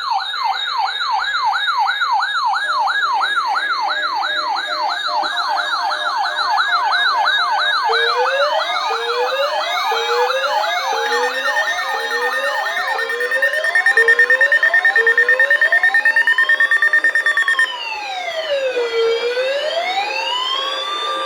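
Electronic siren cycling through its tones. It opens with a fast yelp of several sweeps a second. About eight seconds in come slower rising whoops under a steady high tone, which pulses rapidly for a few seconds, and near the end it turns into a slow rising-and-falling wail.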